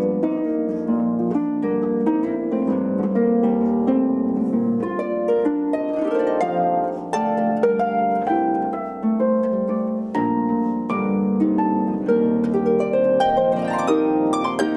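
Concert pedal harp played solo in a jazz style: a continuous run of plucked chords and melody notes.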